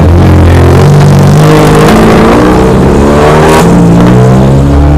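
A car engine and exhaust running loud and close, the pitch wavering as it is revved and sliding down near the end.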